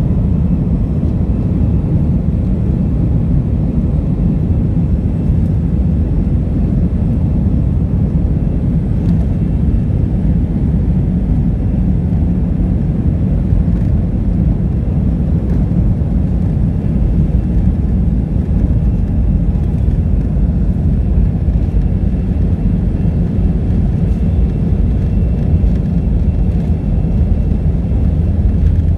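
Airbus A319 jet engines heard from inside the passenger cabin: a loud, steady low rumble with faint steady whining tones above it.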